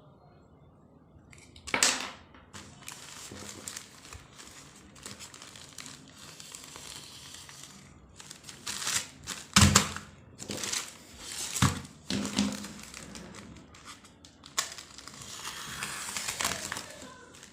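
Plastic packaging of a Sakura Gelly Roll pen set being handled and opened: irregular crinkling and rustling, broken by several sharp knocks, the loudest about ten seconds in.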